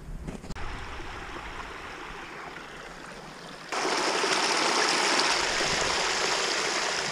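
Water rushing and splashing over a low ledge into a shallow creek channel: a steady, noisy rush that becomes suddenly much louder a little past halfway through.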